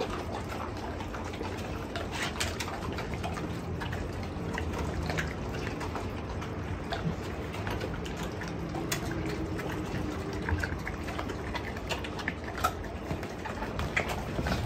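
Mastiffs eating raw chicken from a shared metal bowl: wet chewing, licking and slurping, with many small sharp clicks and crackles scattered throughout.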